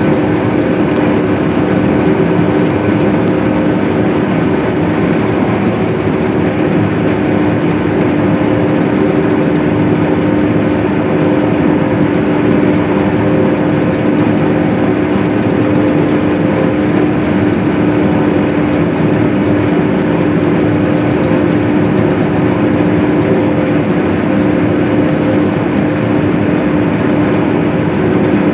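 Case IH swather running steadily while cutting hay: a constant, unchanging machine drone with a steady hum.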